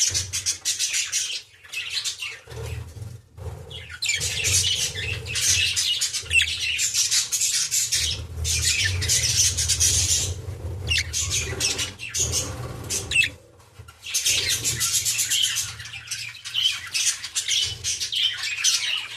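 Budgerigars chattering and squawking in a rapid, near-continuous stream of high chirps, broken by a few short pauses.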